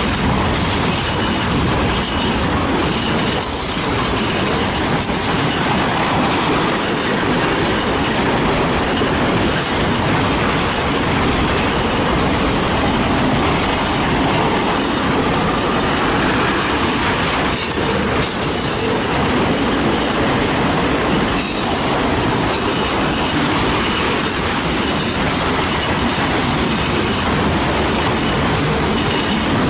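Freight cars of a fast-moving CN mixed freight train rolling past close by: a steady rumble of wheels on rail with high-pitched wheel squeal and occasional clunks over the joints.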